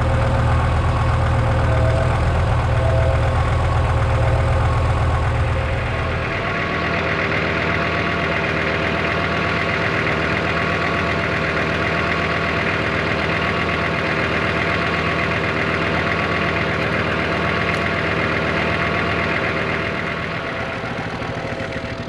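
Compact tractor engine running steadily. About six seconds in its deep low rumble drops away and a higher, steady whine comes up.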